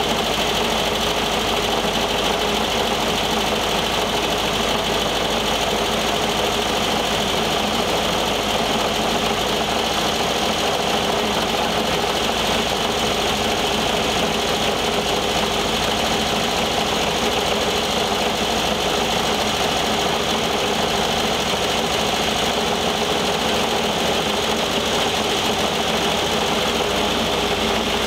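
1973 VW Thing's air-cooled flat-four engine running steadily at a constant speed.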